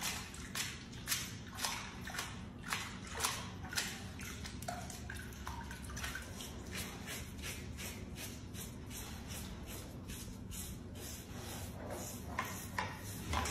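Giant anteater splashing and sloshing water while rolling and scrubbing in a shallow tub: repeated short splashes, about two a second and loudest in the first four seconds, softer through the middle, and louder again near the end.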